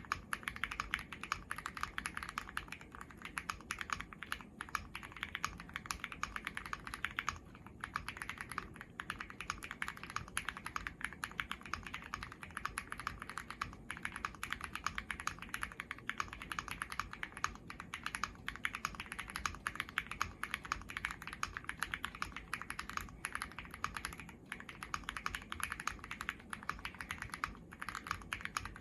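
Fast continuous typing on a Weikav Sugar65 mechanical keyboard with stock Gateron CM 3.0 linear switches, an FR4 plate and PBT Cherry-profile keycaps, tape-modded for a clacky, marbly sound. The keystrokes come in rapid dense runs with a couple of brief pauses.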